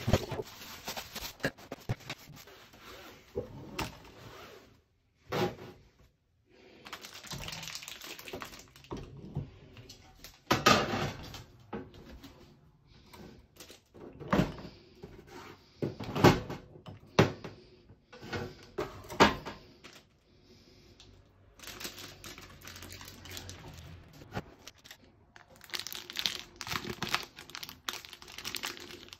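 Kitchen handling noises: scattered knocks and clatters on a stainless-steel counter as a kitchen scale and a baking tray are moved about, then plastic zip-top bag crinkling near the end as raw beef inside it is handled.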